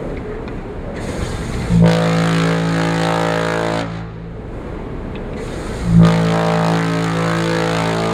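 Queen Mary 2's compressed-air Tyfon ship's whistles being tested: two deep, loud blasts of about two seconds each. Each blast is preceded by a rush of air and ends with a brief hiss.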